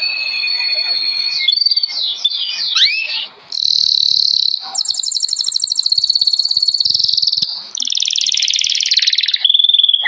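Caged songbirds singing: held whistled notes at first, then a run of quick sweeping notes with one rising whistle, followed by long, fast, buzzy trills, and a steady whistle near the end.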